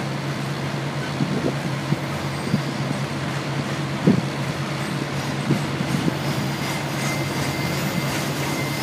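Double-stack intermodal freight cars rolling past: a steady rumble of steel wheels on rail, broken by a few sharp knocks from wheels and couplers, the loudest about four seconds in.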